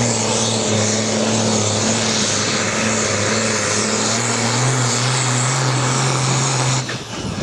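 Diesel engine of a pulling tractor at full throttle under heavy load as it drags a weight-transfer sled, loud and steady, its pitch stepping up slightly about two-thirds through. The sound breaks off abruptly near the end.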